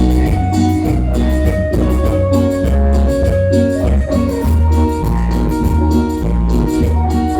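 A band playing an instrumental passage: a guitar melody of held notes over a bass guitar line and a steady drum beat.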